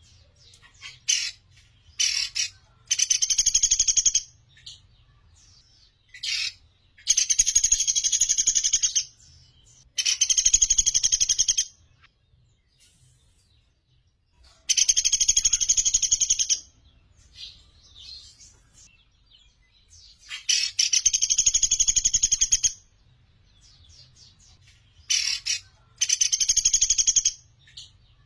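Sunda pygmy woodpecker (pelatuk beras) calling: loud, very rapid trills of about two seconds each, repeated several times with pauses of a few seconds, and short sharp notes between them.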